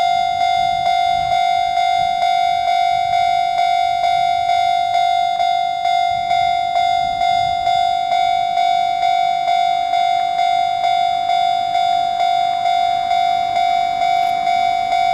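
Japanese railway level-crossing warning bell ringing, one ringing tone struck over and over, about two strikes a second.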